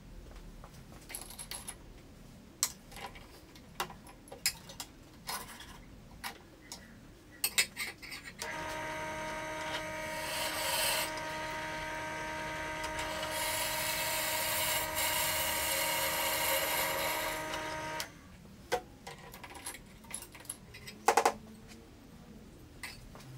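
Bench drill press started up about eight seconds in: its motor runs with a steady hum for roughly ten seconds while the bit cuts into a flat workpiece with a hiss that comes and goes, then it stops. Before and after come scattered clicks and knocks of the workpiece and tools being handled, the loudest a sharp double knock near the end.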